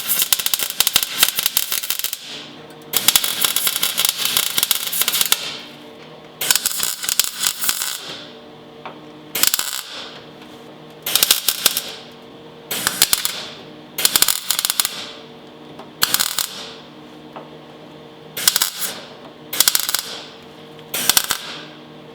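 MIG welder arc crackling on sheet steel in bursts: three runs of a few seconds each, then eight short stitch welds, while a large gap in the rusted body panel is filled. A steady hum runs underneath.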